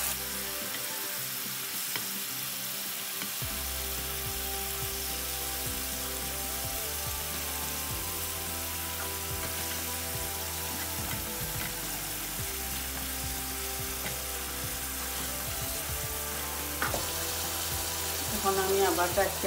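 Food frying in hot oil in a pan, a steady sizzle with occasional stirring scrapes and taps.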